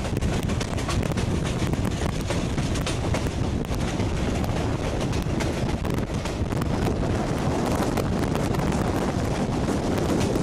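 Wind rushing over a microphone held out from the side of a moving passenger train, over the steady rumble of the train running on the track, with frequent small clicks.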